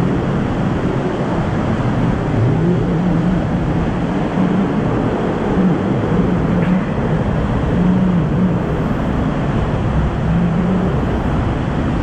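Waterfall pouring into a plunge pool inside a rock grotto: a loud, steady rush of falling and churning water.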